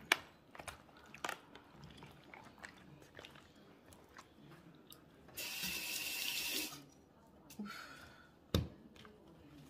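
Wet squelching and small clicks as a hand kneads yellow mustard into raw turkey thighs in a plastic tub. About halfway through comes a steady hiss lasting a little over a second, and near the end a single sharp knock.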